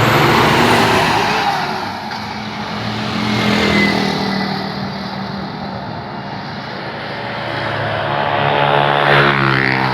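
Large bus's diesel engine running close by, loud with a rush of noise as it passes at the start, then revving up with its pitch rising near the end.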